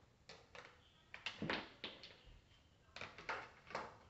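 Plastic toy blocks being put into a plastic toy tub one after another: a run of irregular light clacks and taps.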